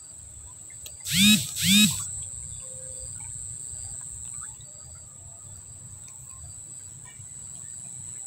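Steady high insect shrilling. Just after a second in come two short, loud pitched cries, each rising and falling.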